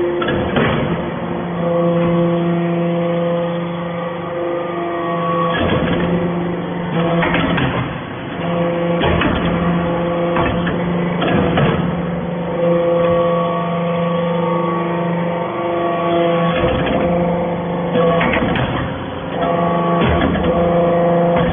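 Gasoline-engine-driven hydraulic metal-chip baler running: a steady pitched hum broken every few seconds by short clanks and knocks.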